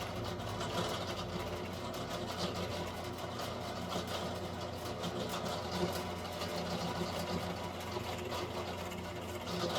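Benchtop drill press running steadily, its motor humming as it bores holes into an oak shelf.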